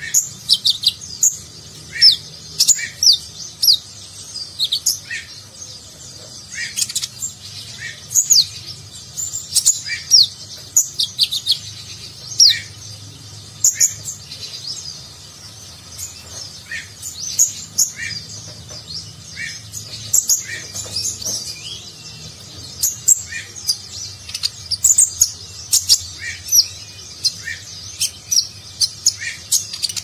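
Male kolibri ninja sunbird (konin) in full, continuous song: a fast string of high, sweeping chirps and twitters, with a lower note dropped in about once a second.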